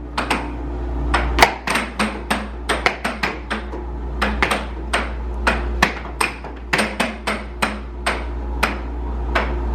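Air hockey rally: the puck cracking against mallets and clacking off the table rails in a rapid, irregular run of sharp hits, about three a second. A steady low hum runs beneath, typical of the table's air blower.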